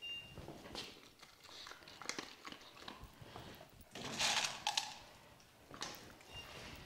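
E-collar tone beeping, one short high steady beep at the start and another near the end, the cue being loaded to mean food is coming. In between, a dog crunching kibble off a concrete floor, with a louder rattle of kibble about four seconds in.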